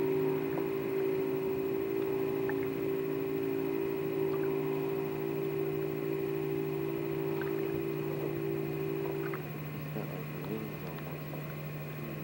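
Boat engine idling with a steady hum; part of the hum drops away about nine seconds in, leaving a lower drone.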